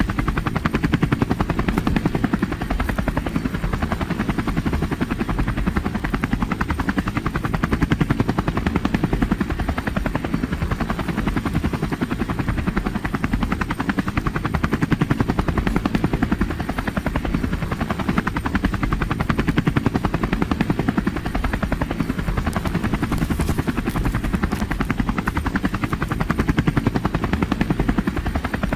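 Helicopter rotor chopping steadily and rapidly, an unbroken loud drone.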